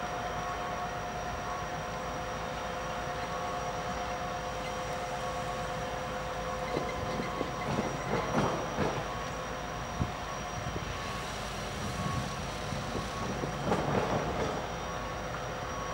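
Stopped GE Dash 9 diesel-electric freight locomotive idling: a steady hum with several constant whining tones. A few short, louder bursts of noise come around the middle and again near the end.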